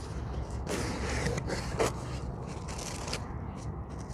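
A cardboard subscription box being opened by hand: irregular scraping and rustling of cardboard and paper, with a few sharp clicks.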